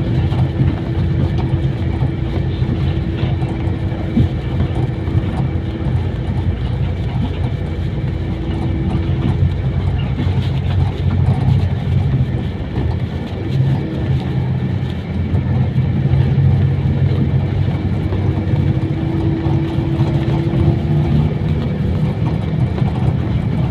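Motor vehicle engine running steadily with road noise, a continuous low rumble with a faint steady hum over it.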